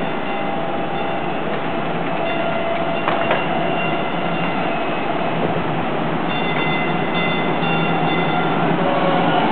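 Light rail train approaching slowly on street-running track, its sound growing gradually louder, with thin high whining tones over a steady noise and a single click about three seconds in.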